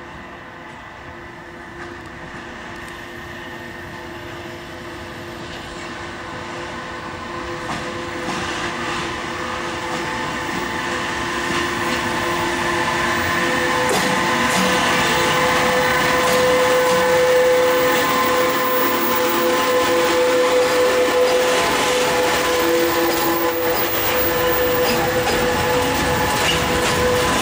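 Freight train hauled by a Pesa Gama electric locomotive running past at close range with a long line of covered hopper wagons. Steady wheel and running noise with a high whine grows louder over the first half, then stays loud as the wagons roll by.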